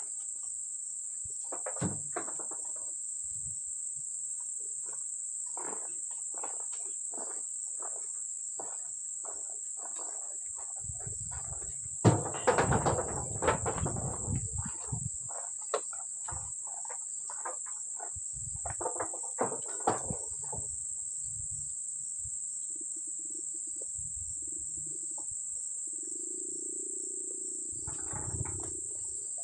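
A steady high-pitched drone of insects such as crickets or cicadas, over irregular knocks and rustles of oil palm fruit bunches being thrown up and landing on a heaped truck load. About twelve seconds in comes a louder run of heavy thumps.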